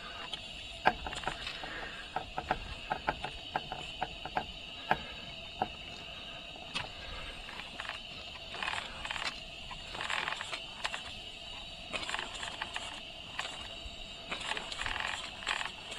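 A 1:12 scale live-steam twin flywheel engine being turned over by hand and rocked back and forth to clear water from its cylinders, which have no drain cocks, and to warm them. First comes a run of small mechanical clicks and knocks, then short bursts of hiss as the engine starts to take steam.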